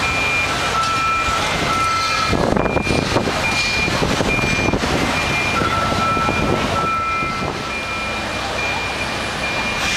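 A vehicle's reversing alarm beeping at a regular pace, with a second steady electronic tone that sounds for a couple of seconds, stops, and returns. A rush of noise covers the beeping for a few seconds about two seconds in.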